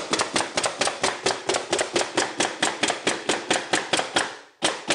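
Pneumatic underlayment stapler firing in rapid succession, about five staples a second, as it drives staples about every two inches along the edge of plywood underlayment. The run stops a little past four seconds in, and two more shots follow near the end.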